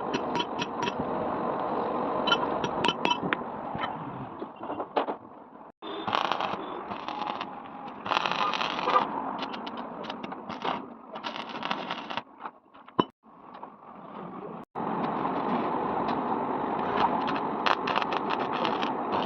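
Metalworking noise from a tractor crack repair, cut together from several clips: a steady crackling, scraping noise with scattered sharp ticks and knocks, breaking off abruptly at each cut.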